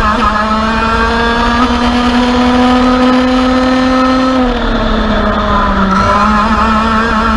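Racing kart engine heard from the kart's onboard camera, revving high near its 16,000 rpm limit under full throttle. The pitch climbs steadily, then drops sharply about four and a half seconds in as the throttle closes. It picks up and climbs again near the end.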